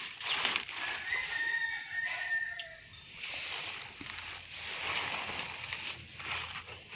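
A rooster crows once in the background, a call of about two seconds near the start. Mustard-green leaves rustle as they are handled and broken off by hand.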